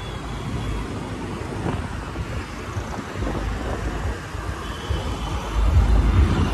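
Road traffic noise heard from a moving scooter in city traffic: a steady rush of passing vehicles and tyres, with a low rumble that grows louder near the end.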